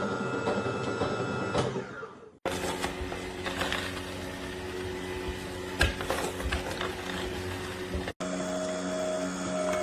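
AMZCHEF cold-press slow juicer running: a steady motor hum with a few sharp cracks. The sound breaks off abruptly twice, about two and a half seconds and eight seconds in, and starts again each time with a slightly different hum.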